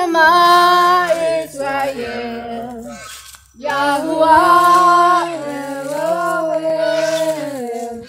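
Unaccompanied singing voices holding long notes in two phrases, with a short break about three seconds in.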